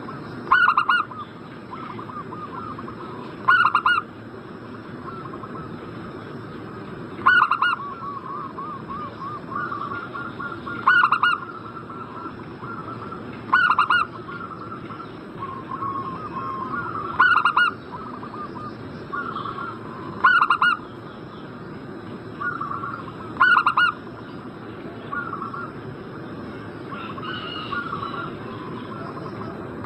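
Zebra dove (perkutut) song: loud short cooing phrases repeated about every three to four seconds, with softer rolling coos between them and a faint steady high whine underneath.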